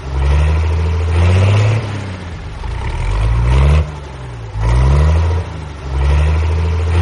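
Heavy vehicle engine sound effect revving in repeated surges, about four in the seven seconds, the pitch climbing as each surge begins.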